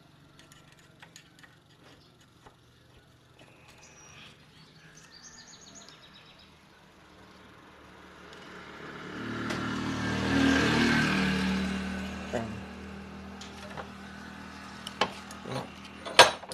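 A vehicle passing by: engine and tyre noise swells over a few seconds, peaks and fades away. Faint clicks of handling a metal part come before it, and a sharp knock comes near the end.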